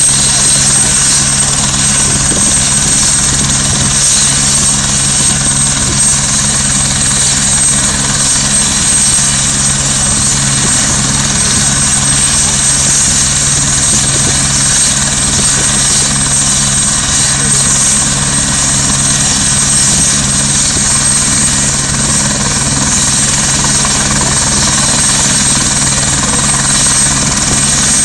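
Helicopter running on the ground with its rotor turning, a steady high whine over a low, even drone.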